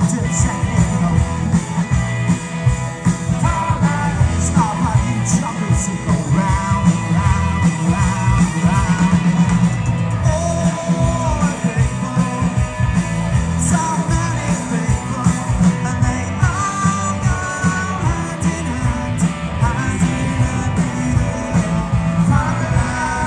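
Live rock band playing a song: guitar and drums with a singer's vocals over a steady beat.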